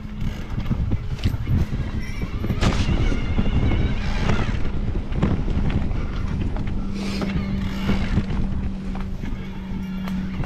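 Mountain bike riding a dirt forest trail: knobby tyres rolling over dirt and roots, with the bike rattling and knocking over the bumps and wind on the microphone. A steady hum runs through the second half.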